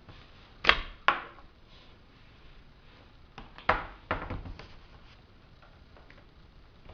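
Plastic snap clips of a laptop screen bezel popping loose as it is pried off: sharp clicks and snaps, two loud ones about a second in, a cluster of them near the middle, then fainter ticks.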